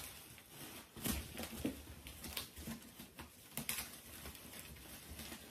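A cardboard shipping box and its packing material being opened and handled: light, scattered rustling with a few sharp clicks.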